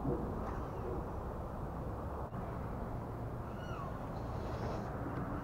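A bird giving short, down-slurred mewing calls, once about three and a half seconds in and again at the end, over a steady low rumble of outdoor background noise.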